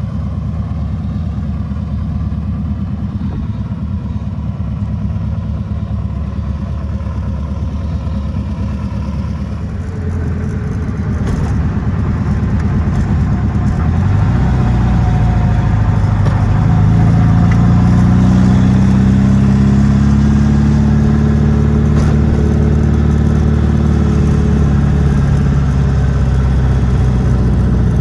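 1972 VW Super Beetle's air-cooled flat-four engine running while driving. From about ten seconds in it climbs in pitch and gets louder as the car accelerates, then holds a higher, steady note that eases slightly near the end.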